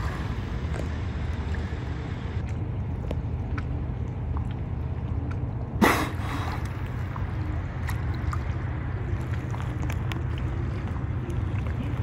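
A dolphin surfacing and exhaling through its blowhole: one short, sharp blow about six seconds in, over a steady low background rumble.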